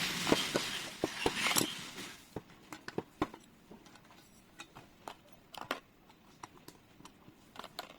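Rustling for about the first two seconds, then scattered light clicks and taps as small metal and plastic lock parts are handled.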